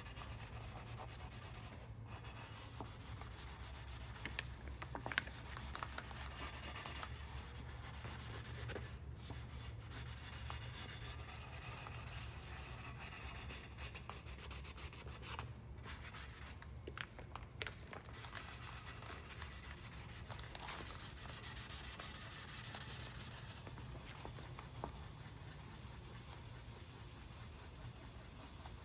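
Hand wet-sanding of cured epoxy on a carbon-fibre rigger with 600-grit paper: steady, rapid rubbing strokes with a few sharp clicks along the way.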